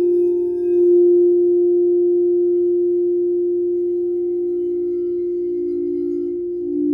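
Frosted crystal singing bowls ringing: one bowl holds a steady pure tone, and a second, slightly lower tone from another bowl joins near the end, pulsing.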